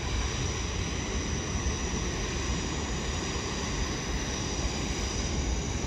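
Steady railway station background noise: a low rumble with an even hiss and faint high hum from trains standing and running at the platforms, with no distinct events.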